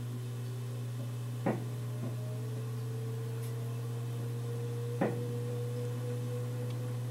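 2003 SMC 36-inch ceiling fan (model H36UL) running with a loud, steady motor hum, which the owner blames on its cheap Chinese capacitor. A fainter whine above it rises slowly in pitch and then levels off, and two sharp clicks come about a second and a half in and again about five seconds in.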